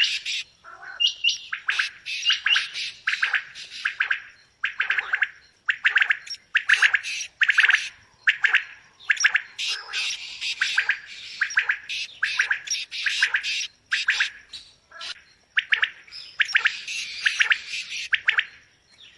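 Quail calling: rapid runs of short, sharp chirps in bouts of about half a second to a second, following one another with only brief gaps.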